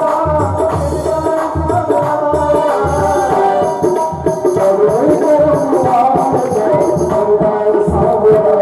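Devotional Krishna bhajan music with a steady tabla beat under sustained melody lines.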